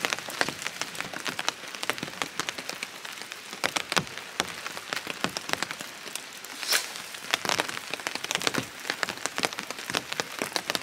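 Hard rain falling steadily, individual drops landing as many irregular sharp ticks over the hiss, with one stronger hit about two-thirds of the way through.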